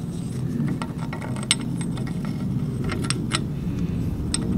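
A metal port lump clinking against the cast-iron Chevy 292 cylinder head as it is worked into an intake port: a few sharp metal clicks over a steady low hum.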